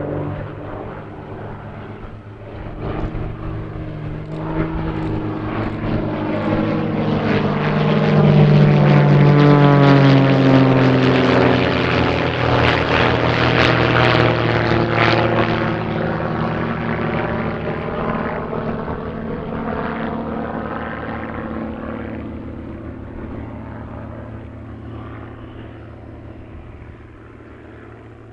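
Propeller engines of three aerobatic biplanes flying in formation: a steady drone that grows to its loudest about a third of the way in, drops in pitch as the formation passes, then fades away.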